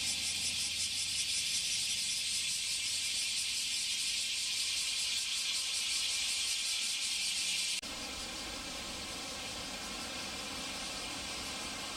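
A dense, pulsing chorus of cicadas, with the low hum of a Bombardier Q400 turboprop fading out in the first second. About eight seconds in, the sound cuts to a quieter, steadier hiss over a low rumble.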